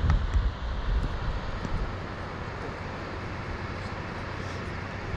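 Wind buffeting the microphone, with uneven low gusts for about the first second and a half, then a steady, even rush.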